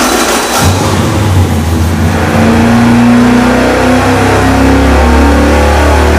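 V8 engine with a solid roller camshaft running wide open on an engine dyno during a power pull. Its note rises slowly and steadily as the rpm climbs from about 3,000 to about 3,700.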